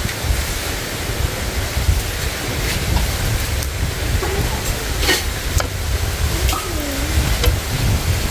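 Wind rumbling on the microphone over a steady hiss, with a handful of sharp clicks or snaps scattered through.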